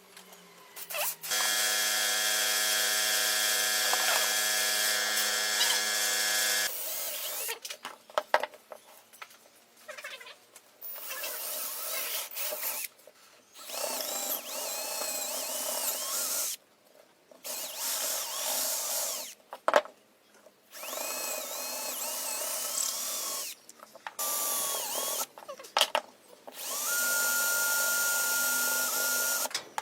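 Power tools running in a string of short runs, each a few seconds long, with abrupt starts and stops between them. The first, about a second in, is a steady electric-motor whine lasting about five seconds.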